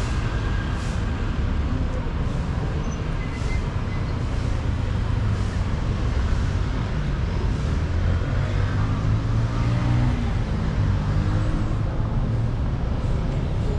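Steady city street traffic noise: a continuous low rumble of cars passing on the road.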